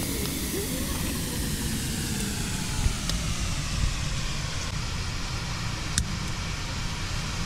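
Steady rushing noise with two sharp clicks, about three seconds in and about six seconds in.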